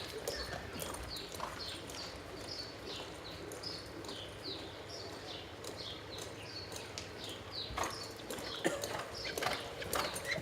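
Reining horse's hoofbeats on arena dirt during a run, with short high chirps repeating about twice a second through the middle and sharper knocks near the end.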